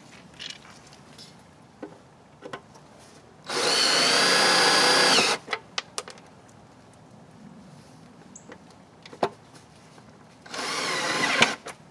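Cordless drill driver driving self-tapping sheet metal screws into a deer feeder's feed plate. There are two runs of a steady whine, one of about two seconds from about three and a half seconds in and a shorter one near the end, with small clicks and knocks of handling in between.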